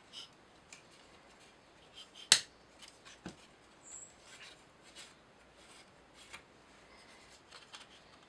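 Small plywood kit parts being handled and pressed together: faint scattered clicks and rubbing, with one sharp wooden click about two seconds in.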